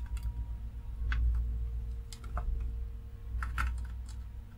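Faint scattered ticks and taps of a soldering iron tip and leaded solder wire working the tab of a small MOSFET on a circuit board, over a low steady hum.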